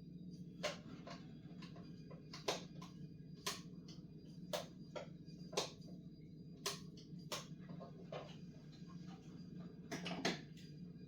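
Sharp, light clicks at irregular intervals, roughly one a second and sometimes two close together, over a steady low hum.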